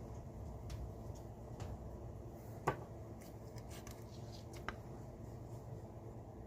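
Light metallic clicks and clinks from an old bench vise being handled and worked, with a sharper ringing metal clink about two and a half seconds in and a smaller one near five seconds. A steady low hum runs underneath.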